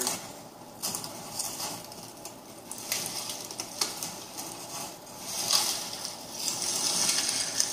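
Bare branches and twigs of hinge-cut saplings rustling and cracking, with scattered sharp snaps, as a man pushes through the brush, heard through a TV speaker. The rustling grows denser over the second half.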